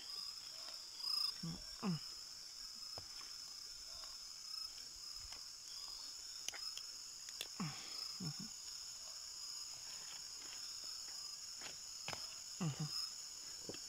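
Steady night chorus of crickets and other insects, a continuous high shrill. A few short falling chirps and some sharp clicks come through now and then.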